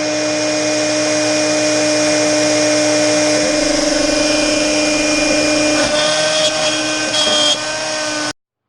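Router spindle of a Shapeoko 3 XXL CNC running at high speed with a steady whine over a broad noise. Its tone shifts slightly about six seconds in, and it cuts off suddenly near the end.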